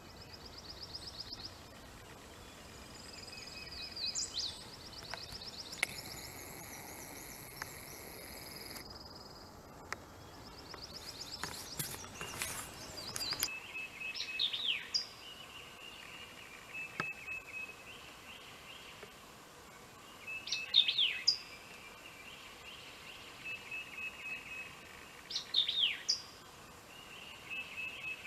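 Wild songbirds singing: trills early on, then repeated phrases of a short run of even notes ending in steeply falling whistles. A steady background hiss drops away about halfway through.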